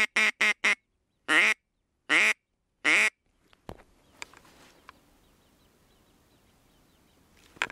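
Mouth-blown duck call sounding quacks to a circling duck: the last few of a quick falling run of short quacks, then three single, longer quacks about a second apart. A sharp click follows, and a knock comes near the end.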